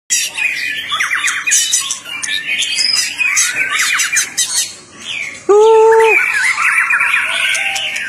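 White-rumped shama singing a fast, varied song of whistles, sweeps and rapid trills. Just past the middle comes a loud, steady-pitched tone of about half a second.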